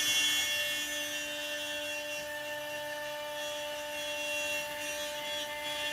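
CNC router spindle running at a constant speed, a steady whine with no change in pitch, while a surfacing bit passes back and forth across the wooden board.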